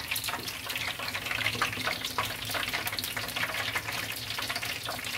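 Battered mussel skewer deep-frying in hot oil: a steady sizzle with many small crackling pops.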